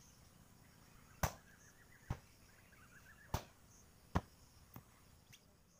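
Hatchet chopping firewood: four sharp chops about a second apart, then a couple of lighter knocks near the end.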